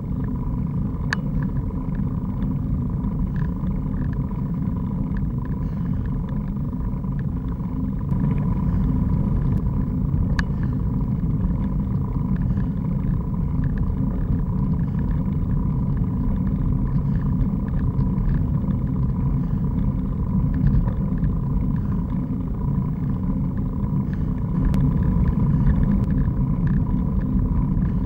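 Wind buffeting a bicycle-mounted camera's microphone and tyres running on asphalt as a road bike rolls along at speed, a steady low rumble that grows a little louder about eight seconds in.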